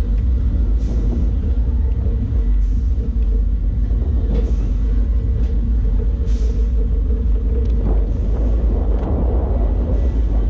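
Steel roller coaster train being hauled up the lift hill by its chain lift: a steady low rumble with a constant drone from the lift chain. The noise grows rougher about three-quarters of the way through as the train nears the crest.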